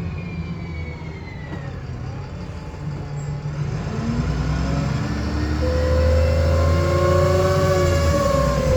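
VDL SB200 Wright Commander bus running with a whirring whine. The whine falls in pitch as the bus slows over the first couple of seconds. About four seconds in, the engine gets louder as the bus pulls away and the whine rises, then holds steady near the end.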